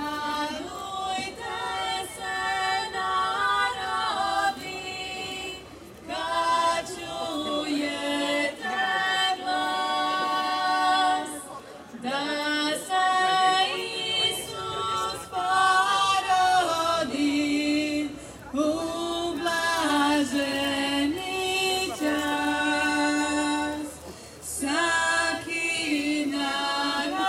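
A small group, mostly women's voices, singing a Christmas carol a cappella in folk style, in phrases with a few short breaks between them.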